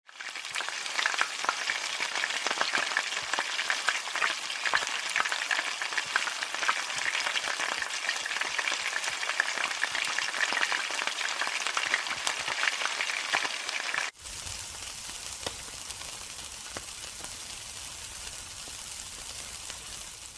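Hot oil sizzling and crackling in a wok over a gas flame. About 14 seconds in it cuts abruptly to a quieter, steadier sizzle over a low rumble.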